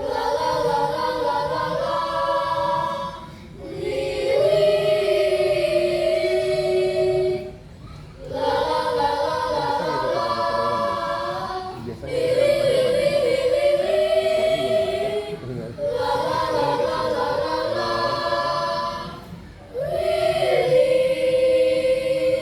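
Elementary-school children's choir singing in several parts, in sustained phrases of about four seconds with short breaks for breath between them.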